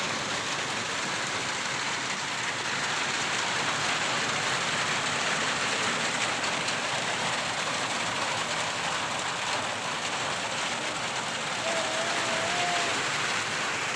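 Steady rain falling on surfaces, an even hiss that holds at one level throughout; a brief wavering tone sounds faintly near the end.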